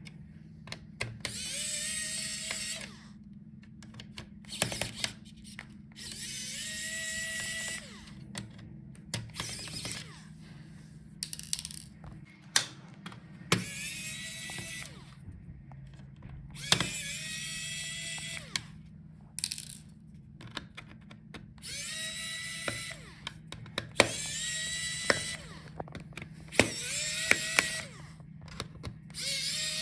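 Small electric screwdriver backing out laptop case screws in repeated short runs of a second or two. Each run winds up quickly to a steady whine. Small clicks of screws and bits come in between.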